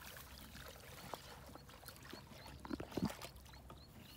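Hands sloshing and splashing through shallow muddy water while groping for fish, with a couple of louder splashes about three seconds in. A faint short chirp repeats about three times a second in the background.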